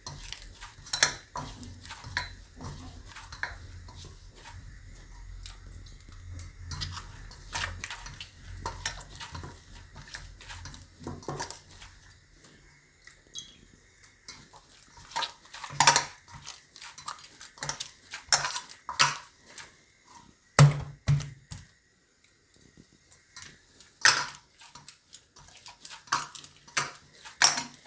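Hands kneading jowar flour dough in a stainless steel bowl: irregular clicks and knocks of hand against the steel as the dough is pressed and turned. A low hum sits under the first twelve seconds or so, then stops.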